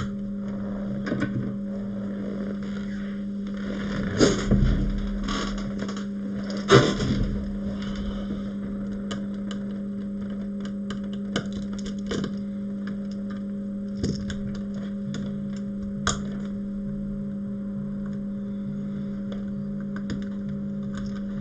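Steady hum of a small motor, with scattered clicks and scrapes of small metal tools working on an opened iPhone's circuit board, loudest about four and seven seconds in.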